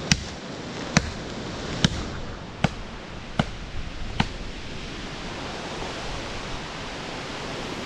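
Tactical sapper shovel blade chopping into a dead tree trunk: six sharp strikes, roughly one every 0.8 seconds, ending about halfway through. Throughout, a steady rush of strong wind gusting through the trees.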